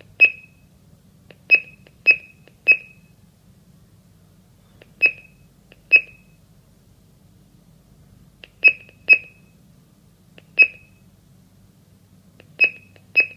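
Touch keypad of a GS-G90E GSM alarm panel beeping at each key press while a phone number is keyed in: about eleven short high beeps at an uneven pace, some in quick pairs.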